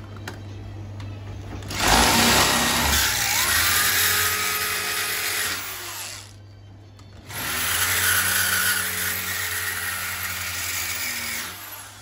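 Electric power drill boring into the fruit machine's cabinet in two runs of about four seconds each, with a short pause between. The motor's pitch rises as each run gets up to speed.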